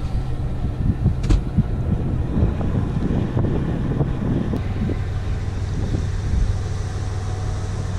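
A boat engine running steadily while the bow pushes through pack ice, with ice floes grinding and knocking against the hull and one sharp knock about a second in. Wind buffets the microphone.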